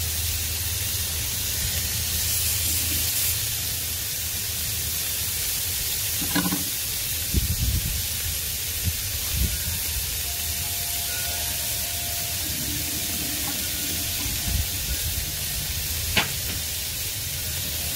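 Burger patties sizzling on the steel top of a Blackstone 22-inch griddle: a steady hiss, with a few soft knocks and a sharp click about 16 seconds in.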